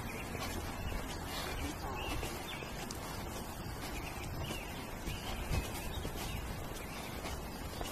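Outdoor ambience: small birds chirping now and then over a steady low rumble of wind on the microphone.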